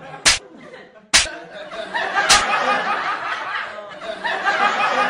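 Three sharp open-hand slaps to the face, about a second apart, followed by a group laughing and chuckling.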